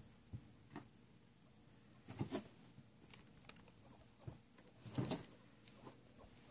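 Small pets moving about in hay bedding in a wire cage: faint scattered taps and rustles, with two short louder rustling bursts about two seconds and five seconds in.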